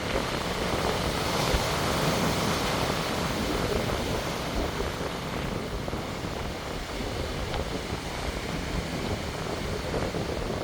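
Sea waves breaking and washing onto the shore, a steady rush that swells louder about two seconds in and eases off in the second half.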